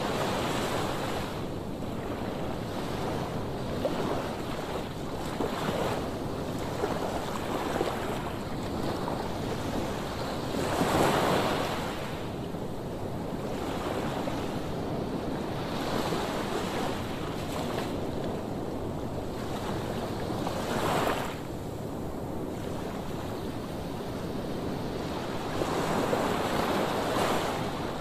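Sea waves washing onto the shore in a steady rush of surf, swelling louder as bigger waves break about a third of the way in, again past two-thirds, and near the end. Wind buffets the microphone underneath.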